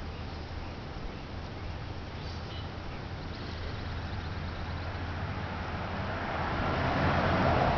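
Steady outdoor background noise with a low rumble, swelling louder over the last couple of seconds.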